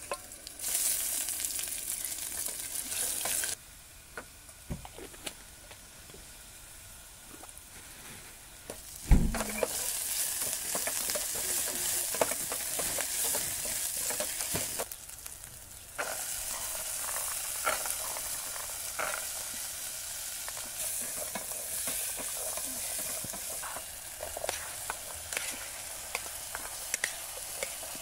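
Onions and vegetables sizzling in hot oil in an aluminium pot on a portable gas stove, stirred and scraped with a wooden spatula, with small clicks of the spatula against the pot. The sizzle drops low from about three and a half to nine seconds in, comes back with a single loud thump, and dips briefly again around fifteen seconds.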